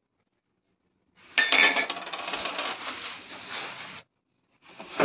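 A sharp metallic clink, then a couple of seconds of clattering and rustling that stops abruptly, followed by another burst of rustling near the end.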